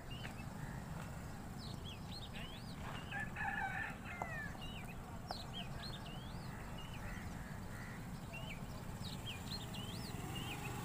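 Birds chirping with many short, quick calls, and a louder call about three seconds in, over a steady low rumble.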